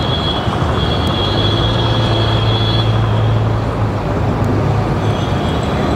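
Steady road traffic noise: the continuous rumble of vehicle engines and tyres, with a low engine hum that swells briefly and a faint high whine that fades out about halfway through.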